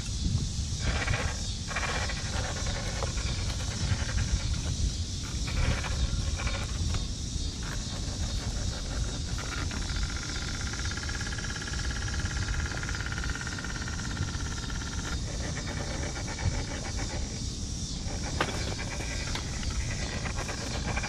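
Electric motor and gear drivetrain of an RC scale rock crawler whining as it crawls over tree roots, starting and stopping in short bursts at first and holding a steady whine for several seconds in the middle. A steady low rumble of outdoor noise runs underneath.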